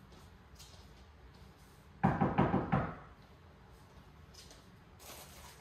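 A quick run of knocking, about six or seven hard raps in under a second, a couple of seconds in.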